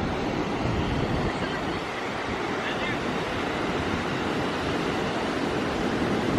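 Pacific Ocean surf breaking and washing up the beach, a steady rushing, with wind buffeting the microphone.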